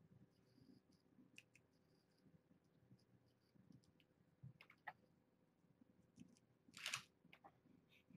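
Near silence: quiet room tone with scattered faint clicks, and one brief louder rustle about seven seconds in.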